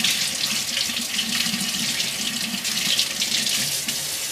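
Kitchen faucet running steadily into a stainless steel sink as asparagus spears are rinsed under the stream.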